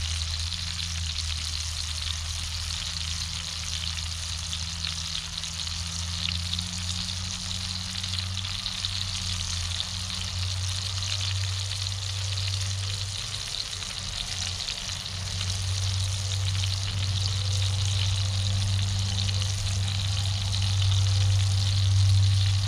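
Steak sizzling in a cast iron skillet over a wood fire, with a large tractor's engine droning low in the background and growing louder in the second half.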